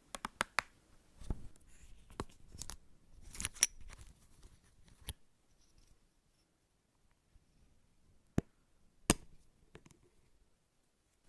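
Close-miked ASMR trigger sounds from small objects being handled: a quick run of sharp clicks and short crackly scrapes, then a pause broken by two more crisp clicks.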